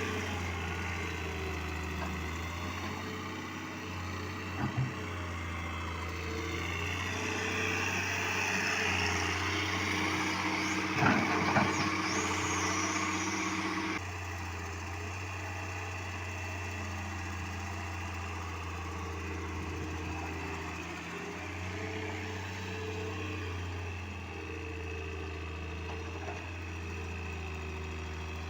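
Heavy diesel construction machinery running steadily, with short metallic knocks about five seconds in and a louder clanking about eleven seconds in. The engine sound changes abruptly about halfway through.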